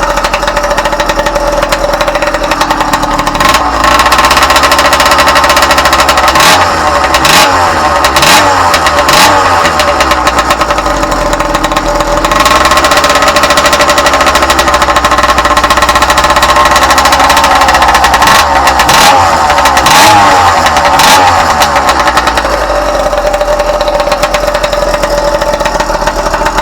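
Old Yamaha YD two-stroke motorcycle engine idling and blipped up in revs several times, falling back to idle between, with a few sharp cracks during the revving. The owner says the engine is dialed in and idles smoothly.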